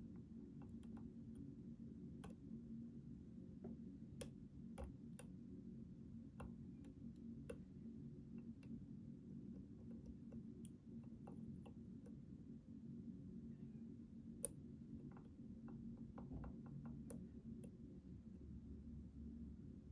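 Faint, irregular clicking of a lock pick and tension wrench working the pins of a Schlage Primus Everest lock cylinder, with one sharper click about two-thirds of the way through.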